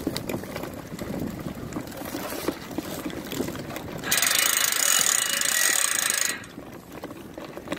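A loud, rapid ratchet-like rattle that starts suddenly about four seconds in, lasts about two seconds and stops abruptly. Before it there is only low, steady outdoor noise.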